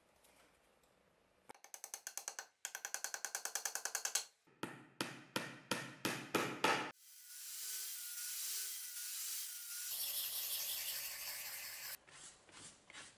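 Quick rhythmic rubbing and scraping strokes worked by hand on a wooden axe handle, in several runs, with a steady hiss of continuous rubbing in the middle and a few more strokes near the end.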